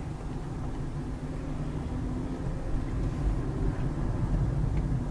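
Car engine and tyre noise heard from inside the moving car: a steady low rumble that slowly grows a little louder.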